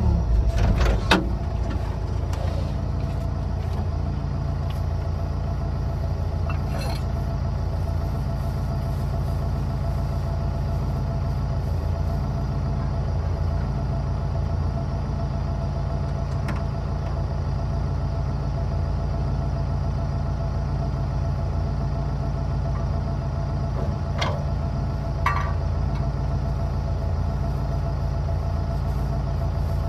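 Excavator's diesel engine idling steadily after its revs drop away right at the start, with a few light clicks.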